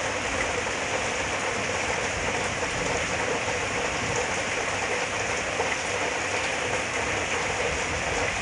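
Heavy rain pouring down steadily, a dense even hiss of falling water.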